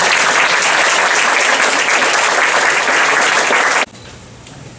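Audience applause, a dense steady clapping that cuts off suddenly about four seconds in. Quiet room sound follows.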